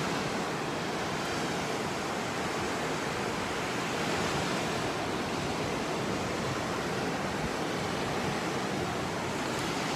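Steady wash of sea surf on a beach, an even hiss with no distinct breaks or other events.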